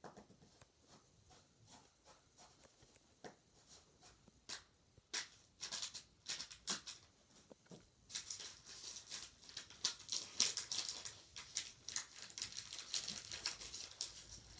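Pencil scratching on lined notebook paper: separate strokes at first, then fast back-and-forth shading strokes running almost without a break from about eight seconds in.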